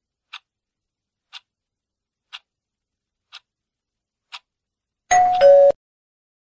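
Quiz countdown timer sound effect ticking once a second, five ticks, then a two-note falling chime about five seconds in that marks time up and the answer being revealed.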